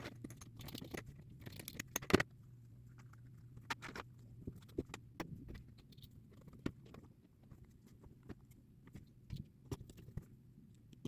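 Scattered light clicks and taps of small parts being handled as a 1/24-scale crawler beadlock wheel is put together, with a louder knock about two seconds in.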